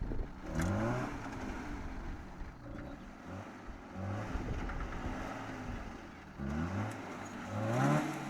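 Off-road 4x4's engine revving in four short bursts, each rising in pitch, the last the loudest, with the engine running steadily in between.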